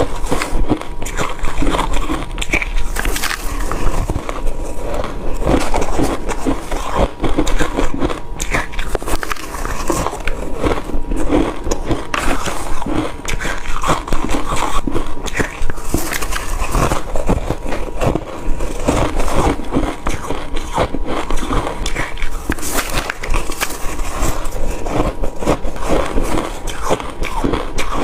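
Crushed and shaved ice being bitten and crunched, a rapid run of crackly crunches one after another.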